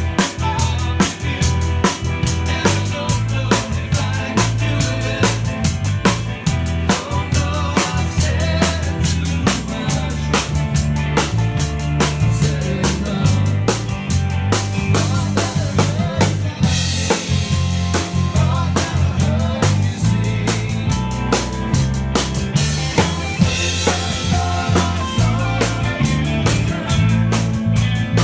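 A five-piece band playing live, the drum kit keeping a busy, steady beat over a bass line that moves note to note. There are cymbal washes about halfway through and again a little later.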